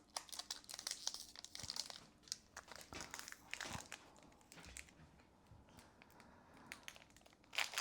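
Hands working at the wrapper of an Upper Deck SP Authentic hockey card pack: faint, scattered crinkling and crackling with small ticks while the pack resists being torn open.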